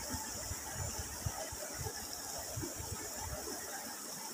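Faint background noise: an uneven low rumble under a steady high hiss.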